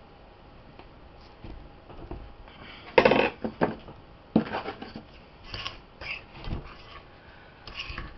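Hands scooping and packing crumbly bath-fizzy mixture from the bottom of a bowl, with scraping and a string of short clicks and knocks. The loudest knock comes about three seconds in.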